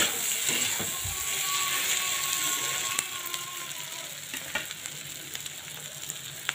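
Fish belly pieces with onion and green chillies frying in a black kadai: a steady sizzle. A spatula stirs and scrapes the pan for the first three seconds, then the sizzle goes on alone, a little quieter.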